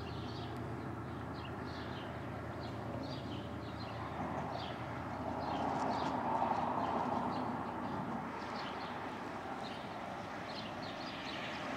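Small birds chirping in short repeated calls over a steady low rumble, with a rushing noise that swells and fades about halfway through.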